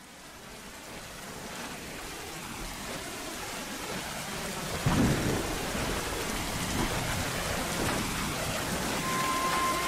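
Steady rain fading in from silence and growing louder, with a sudden crack of thunder about halfway through. A held musical note comes in near the end.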